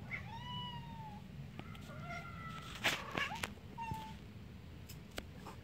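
Domestic cat meowing several times: a first meow about a second long, a longer drawn-out one after it, and a short one near the end, with a few faint clicks around the middle.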